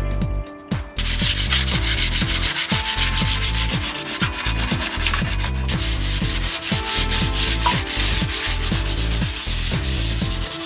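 Sanding disc on a power tool stripping paint from the steel front of a Mitsubishi L300 van: a loud, steady sanding noise that starts about a second in. Music with a steady beat plays underneath.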